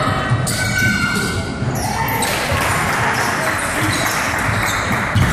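Basketball game sounds in a large gym: a ball bouncing on the hardwood floor, footfalls and indistinct voices of players and spectators, all echoing in the hall.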